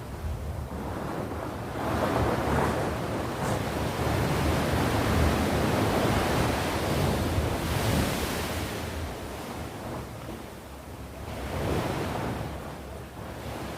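Sea surf washing onto the shore, swelling and easing in slow surges, with a low wind rumble on the microphone.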